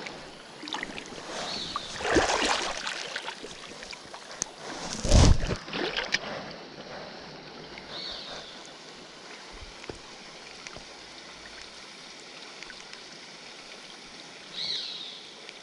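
Shallow river water running steadily around the wader. Two louder sudden rushes of water noise come about two and five seconds in, with a few short high chirps scattered through.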